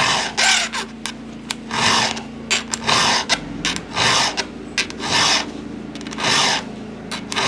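Round file rasping across a chainsaw chain's cutter tooth in separate strokes, about one a second. The tooth is being filed back to a clean, sharp edge after the chain was ground against a rock.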